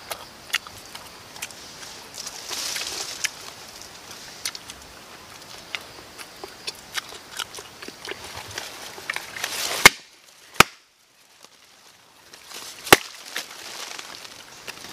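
Small scattered clicks and taps of hands handling things, with three sharp knocks about ten, ten and a half and thirteen seconds in. Between the second and third knock it drops to near silence for about two seconds.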